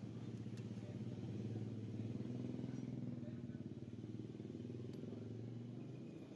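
Motorcycle engine running at idle, a steady low hum with a fine pulsing beat whose pitch shifts slightly a couple of times.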